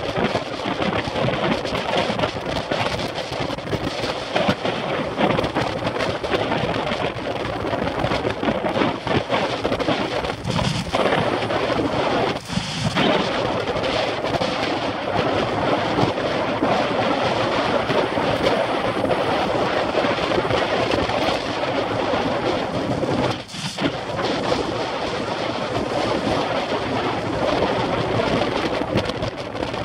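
Wind buffeting the microphone of a bike-mounted camera during a road-bike ride at about 22–24 mph: a steady, loud rushing noise that briefly drops away twice, about twelve and twenty-three seconds in.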